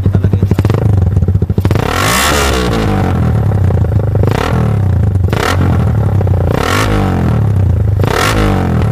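Suzuki Raider 150 carburetted single-cylinder four-stroke engine through an HGM open pipe, idling with a fast even beat, then blipped up and back down about five times.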